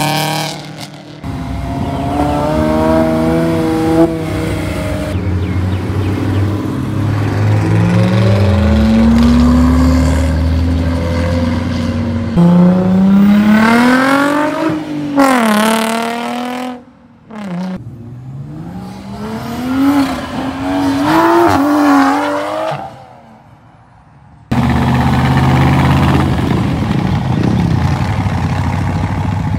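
Several sports cars pulling away one after another, engines revving and accelerating hard through the gears, with several rising sweeps in pitch that drop back at each shift. The sound breaks off abruptly a few times between cars.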